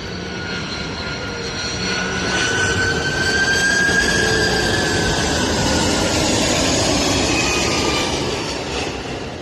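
Jet airliner engines passing close by, a loud roar with high whining tones that swells to a peak midway and then fades. Described as really loud (好大声).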